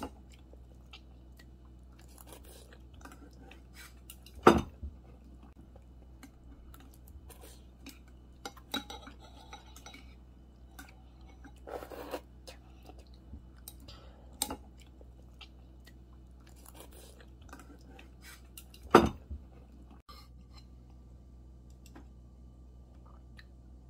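Metal chopsticks and a spoon clinking and scraping against a ceramic noodle bowl, with scattered light clicks and two sharp, louder clinks, one about four seconds in and one near 19 seconds. There is a soft slurp of noodles about twelve seconds in.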